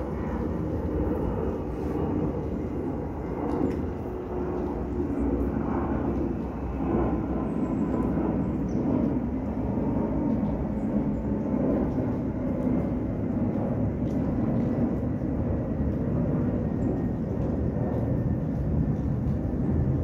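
Steady rain in woodland, recorded on a phone, heard as an unbroken noise dominated by a low rumble.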